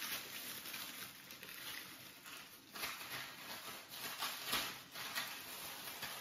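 Thin plastic takeaway bag crinkling and rustling as it is handled and pulled open, irregular crackles with a few sharper rustles.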